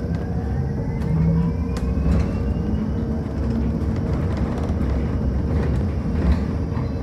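Cabin of an electric bus under way: low road rumble and a steady hum, with the electric drive's whine rising in pitch over the first three seconds as the bus picks up speed, and a few light rattling clicks.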